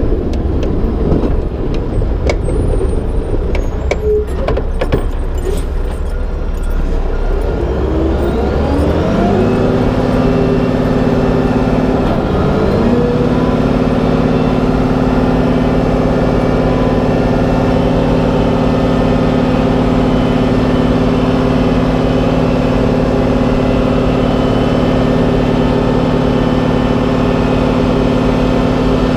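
Mack Granite plow truck's diesel engine and plowing noise, heard from outside the cab: first a rough rumble with scattered scrapes and knocks, then the engine climbs in pitch, dips briefly, climbs again and settles into a steady drone.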